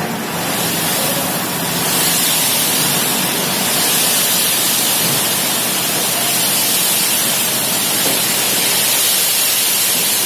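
M-sand (manufactured sand) pouring out of a tipper lorry's raised body past the open tailgate onto a pile: a steady rushing hiss that swells about two seconds in.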